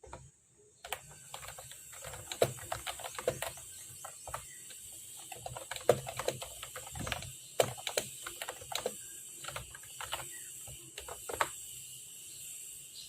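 Typing on a Mofii Sweet keyboard: irregular runs of key clicks that stop about eleven and a half seconds in, over a steady faint hiss.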